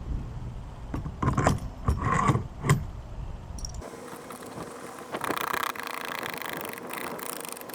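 Metal hardware clinking and knocking as washers and a nut are handled on a threaded-rod axle and fitted against PVC pipe fittings: a handful of sharp clinks in the first three seconds. Then the sound changes abruptly to a steady hiss with a faint hum.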